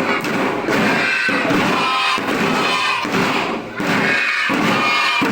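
Children's drum band drums being struck in a rhythm, thumping together with music, with a brief pause about four seconds in.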